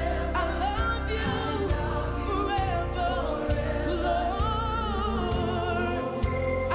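Live gospel music: a young boy sings runs and held notes with vibrato over a live band with a steady bass and drum beat.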